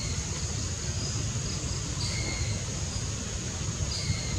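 Tropical forest ambience: insects keep up a steady high-pitched drone while a short two-note call repeats about every two seconds, over a low rumble.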